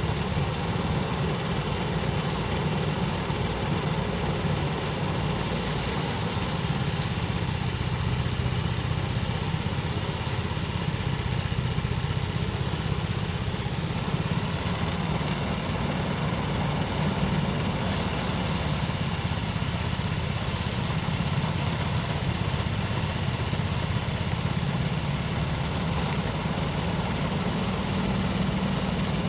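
Rice thresher's small engine running steadily, a constant drone with no change in speed.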